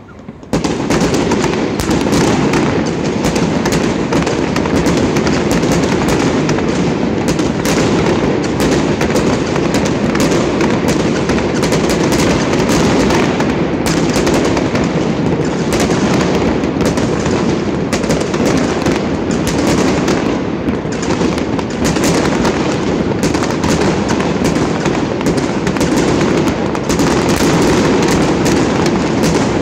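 Aerial fireworks going off in a dense, continuous barrage of bangs and crackle, starting suddenly about half a second in.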